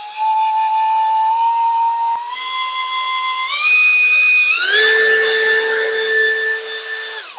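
Parkside Performance PABS 20-Li C2 brushless cordless drill running free in first gear, its motor whine stepping up in pitch as the trigger is squeezed further. The whine climbs steeply about two thirds of the way through, then cuts off suddenly.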